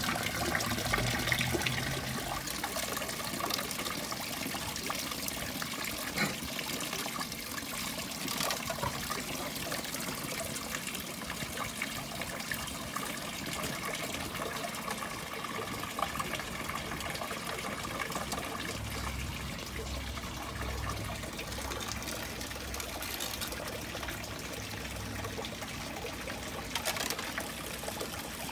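Water trickling steadily into a small garden pond, with a few short knocks.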